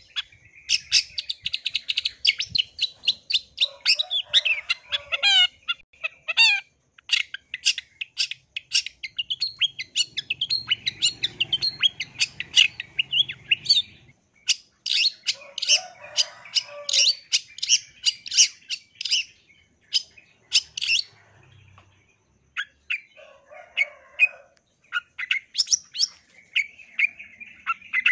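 Long-tailed shrike singing a fast, chattering run of sharp high notes and trills, broken by a few short pauses.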